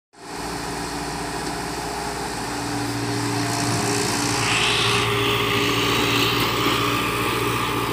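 Compact JCB tracked excavator's diesel engine running steadily under working load, its hum firming up and growing a little louder a few seconds in as the hydraulics lift a loaded bucket.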